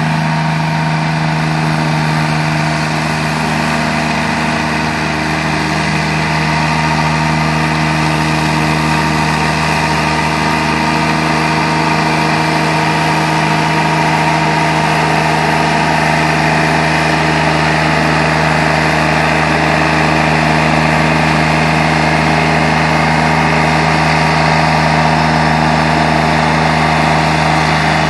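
Engine of a remote-controlled tracked mower running at an even pitch while the mower cuts through tall grass.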